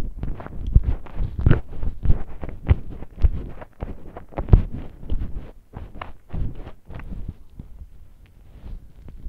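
Close-miked chewing of soft donuts: irregular short wet mouth sounds with deep thumps, about two a second, easing off near the end.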